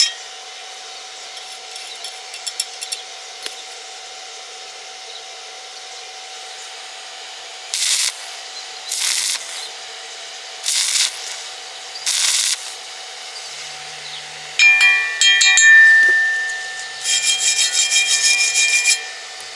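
Rasping tool strokes on metal: four separate strokes about a second apart, then a faster run of rapid, evenly repeated strokes with a ringing tone through them.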